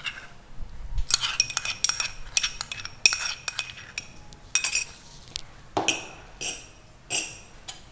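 Steel spoon clinking and scraping against a bowl as paste is scraped off it. The clinks come quickly over the first few seconds, then a few single clinks follow, spaced well apart.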